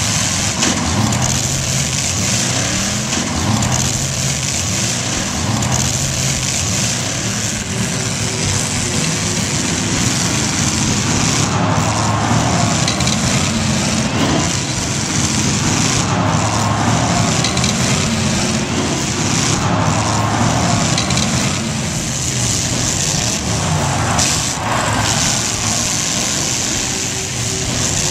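Several demolition derby cars' engines revving up and down together in the arena, with now and then the sudden crunch of cars colliding.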